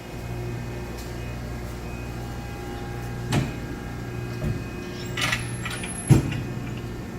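Amada RG-80 hydraulic press brake running: a steady hum from its hydraulic pump, with two sharp thuds about three and six seconds in and a short clatter between them.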